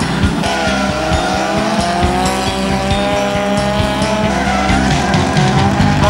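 A drift car's engine revving up and down while its tyres squeal and skid through a slide, with music playing underneath.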